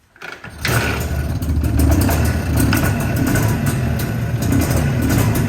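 Jawa 350 type 638 two-stroke twin motorcycle engine starting from fully cold on the choke, catching about half a second in and then running steadily.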